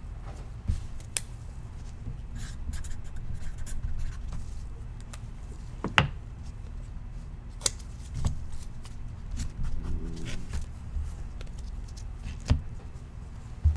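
Scattered light clicks, taps and rustling of trading cards and their packaging being handled on a table, with a sharper click about six seconds in.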